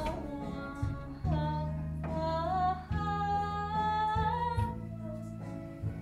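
A woman singing solo, holding long, gliding notes over an instrumental accompaniment of steady low chords.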